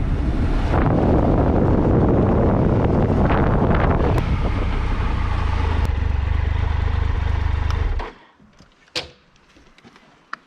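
2019 Triumph Tiger 1200 XCA's three-cylinder engine under heavy wind noise on the microphone while riding. About four seconds in the wind eases and the engine settles to a steady low idle. At about eight seconds all of it cuts off suddenly, leaving only a few faint ticks.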